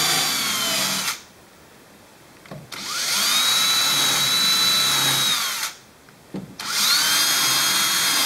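DeWalt power drill boring clearance holes in a G10 handle scale in three short runs, its motor whine rising in pitch as the trigger is squeezed and falling as it is let go. There are small clicks in the pauses between runs.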